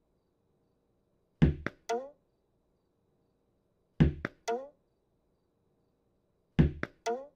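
Tennis ball thrown against a wall, heard three times. Each throw is a quick group of three hits: a heavy thump, a sharp tap, and a hollow ringing knock that drops in pitch. The throws repeat about every two and a half seconds.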